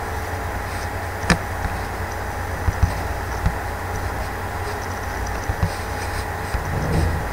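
Steady low hum and hiss of background noise on the microphone. There is one sharp click about a second in and a few fainter clicks later, which fit computer mouse clicks.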